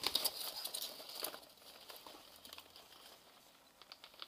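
Hands rummaging through styrofoam packing peanuts in a cardboard box, a rustling and crinkling that is busiest in the first second and a half, then dies down to a few light clicks near the end.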